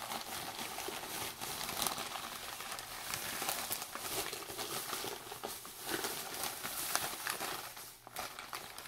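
Paper crinkling and rustling continuously, with many small crackles, as an item is handled and unwrapped from white paper.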